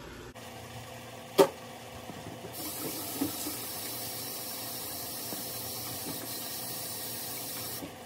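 Kitchen faucet running into the sink, a steady hiss from about two and a half seconds in until just before the end. A single sharp knock about a second and a half in is the loudest sound, with a few small knocks a little later.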